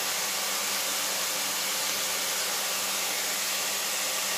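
Steady hiss of mixed vegetables cooking over a high flame in the pot, with a low, even hum underneath.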